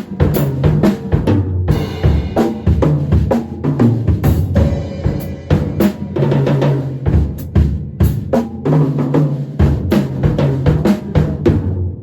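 A drum kit being played: a busy groove of bass drum, snare and rimshots with quick fills, and cymbal crashes about two and five seconds in.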